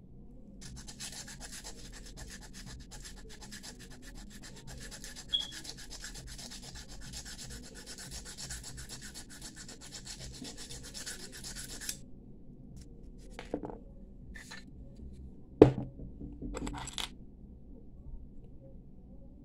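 Brass bangle being hand-sanded on a wooden mandrel with folded sandpaper: rapid, scratchy back-and-forth rubbing that stops about twelve seconds in. A few light knocks and one sharp click follow.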